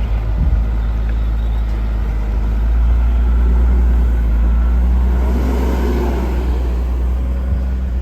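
Steady low rumble of a motor vehicle's engine running, swelling slightly about halfway through.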